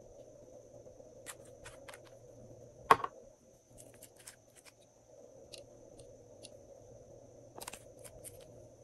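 Small clicks and taps of glass nail polish bottles and their brush caps being handled, with one much louder knock about three seconds in, over a faint steady hiss.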